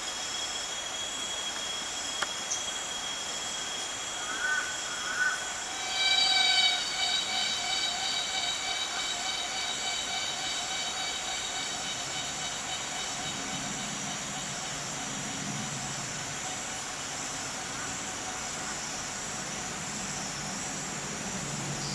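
Rainforest insect chorus at dusk: a steady high-pitched drone, joined about six seconds in by a louder whistle-like call that holds one pitch with a slight pulsing.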